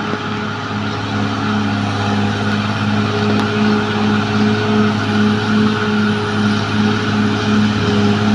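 Caterpillar D6R XL bulldozer's diesel engine running steadily under load, with a low drone and a higher tone that pulses on and off a little under twice a second.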